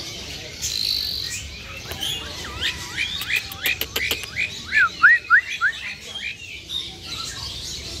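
Caged songbirds chirping and whistling, with a run of about five quick, loud, looping whistled notes about five seconds in, and a few sharp clicks shortly before it.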